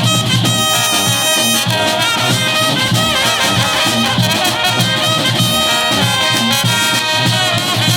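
Brass band playing an upbeat tune live: held horn notes over a steady beat.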